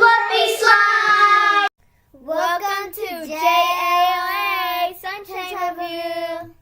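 A child singing in long held notes; the singing breaks off abruptly for about half a second, then carries on.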